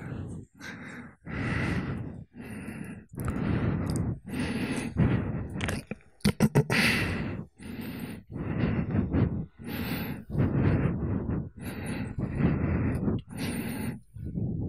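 A person breathing close to a microphone: a regular run of quick breaths, roughly one a second.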